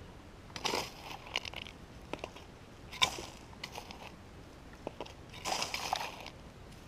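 Dry gravelly soil and leaf litter crunching and scraping as it is dug with a hand pick and raked through by hand, in several short bursts, with one sharp knock about three seconds in.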